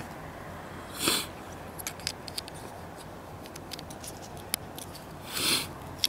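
Small plastic building bricks being handled and pressed together, giving scattered light clicks, with two short hisses, one about a second in and one near the end.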